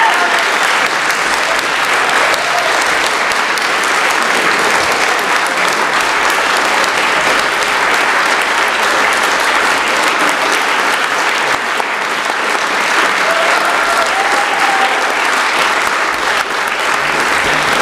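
Sustained, steady applause from a large gathering of people in the debating chamber, greeting the close of a speech.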